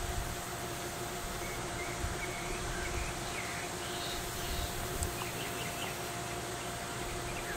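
Outdoor ambience of steady hiss and a low steady hum, with faint, scattered chirps of small birds in the distance.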